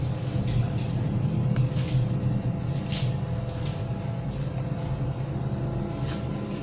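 Steady low rumble with a faint hum and a few faint ticks from a covered stainless steel pot cooking on the stove burner.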